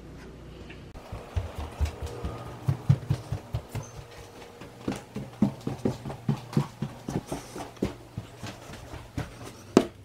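Footsteps climbing indoor stairs, about three steps a second, with a short pause midway and a sharper knock near the end.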